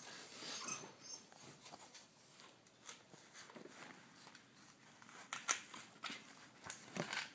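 Scattered light clicks and scrapes of a cocker spaniel puppy pawing and dragging a light food bowl of dry kibble against the bars of a metal gate, with a couple of sharper knocks about five and a half seconds in and near the end.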